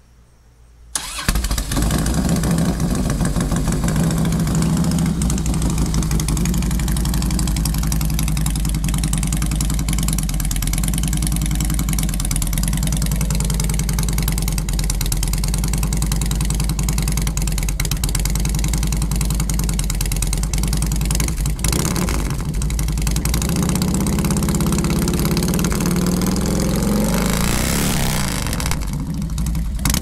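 2005 Harley-Davidson Road King's 88-cubic-inch Twin Cam V-twin, on true dual headers with unbaffled 33-inch Wyatt Gatling fishtail pipes, cranking and catching about a second in on a cold start, then idling steadily. Near the end the engine briefly picks up speed and settles again.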